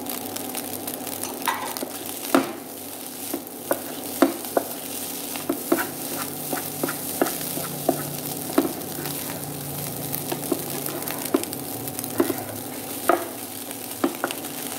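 Wooden spatula stirring and turning fried rice in a nonstick frying pan over a steady sizzle, with irregular taps and scrapes of the spatula against the pan.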